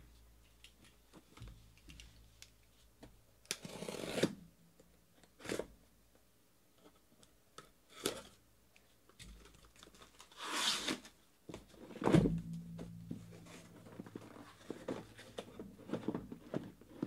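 Packing tape on a cardboard shipping carton being slit and torn open, with two long rips about 4 and 10 seconds in. A heavy cardboard thud about 12 seconds in as the carton is handled, among clicks and rustles of cardboard.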